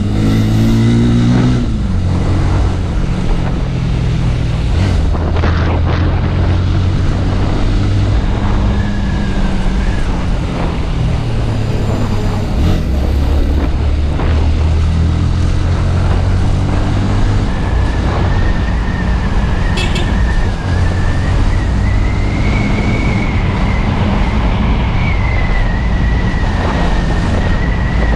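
Honda Twister motorcycle's single-cylinder engine running under way, its pitch climbing and then dropping back several times as the rider accelerates and shifts gears.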